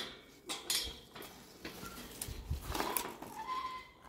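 Scattered clicks and metallic rattles of a balisong (butterfly knife) being flipped by hand.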